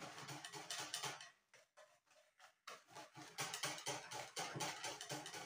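Hand whisk beating thick pancake batter in a plastic bowl: quick, rapid strokes, pausing for about a second a couple of seconds in, then going on.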